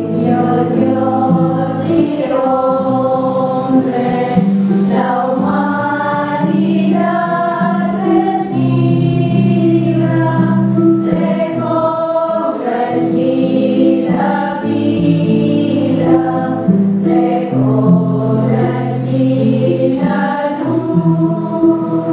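A choir of women's voices singing a slow Christmas carol in held, sustained phrases.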